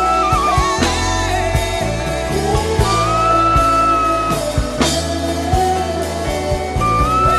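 Gospel worship music: a wordless hummed melody, with long held notes that slide up into each phrase, over a band backing of bass guitar and drum kit.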